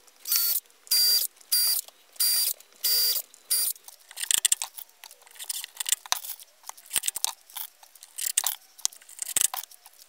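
DeWalt cordless drill-driver run in six short bursts with a high whine, driving a screw through a plastic wire clip into plywood. After that come irregular small clicks and rattles of the clip and screws being handled.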